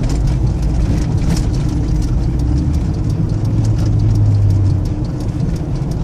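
Steady engine and road rumble inside a closed vehicle cabin, the engine note swelling a little about four seconds in. Over it, a pug's heavy breathing comes as rapid short puffs, several a second.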